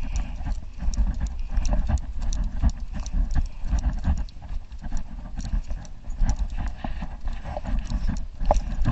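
Irregular clicking and knocking, several a second, over a steady low rumble.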